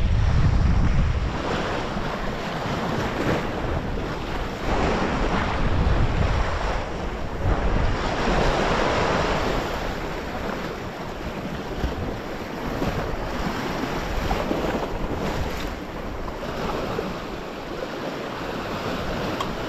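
Sea waves washing and breaking against shoreline rocks, swelling and ebbing every few seconds, with wind buffeting the microphone, heaviest in the first second or so.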